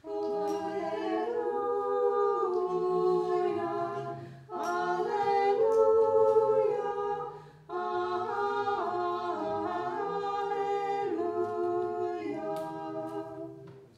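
Unaccompanied voices singing Orthodox liturgical chant in harmony, in three phrases with brief breaks between them about four and a half and seven and a half seconds in.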